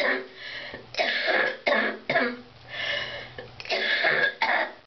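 A man coughing hard from a bad chest illness, a severe cough that he says is wearing him down. Several sharp coughs come in quick succession about a second in, then longer, drawn-out coughing near the end.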